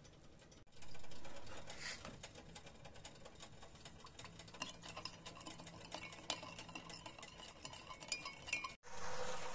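Metal teaspoon tapping and clinking lightly against a glass cup while sugar is spooned into soy sauce and stirred in: a long run of small irregular ticks, after a brief rushing noise about a second in. Near the end it cuts to a steady hiss.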